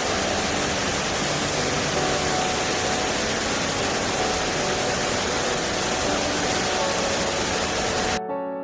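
Waterfall rushing, a steady even roar of falling water, which cuts off abruptly near the end as soft piano music begins.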